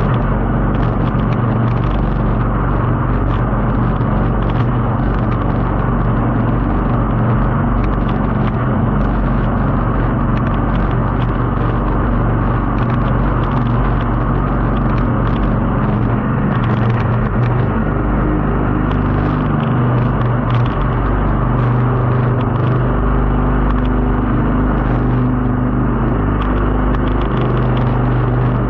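Jet boat's engine running steadily, with a rush of wind and water noise over it.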